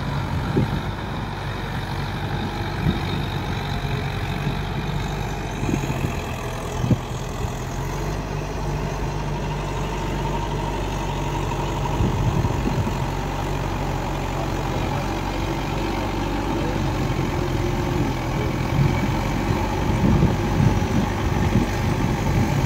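Mahindra Yuvo Tech+ 585 tractor's four-cylinder diesel engine running steadily under load, pulling a rotavator through flooded paddy mud. A few brief knocks come in the first seven seconds.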